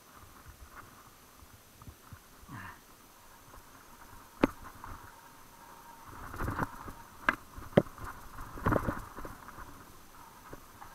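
Mountain bike riding a dirt singletrack: tyre rumble with sharp knocks and rattles of the bike over bumps and roots, one sharp knock about four seconds in and a run of them between about six and nine seconds in.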